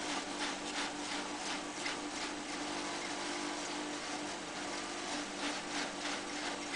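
Electric-motor-driven hammer mill running and grinding branches fed into its hopper: a steady motor hum under a harsh, rough grinding noise that swells in irregular bursts as the wood is shredded.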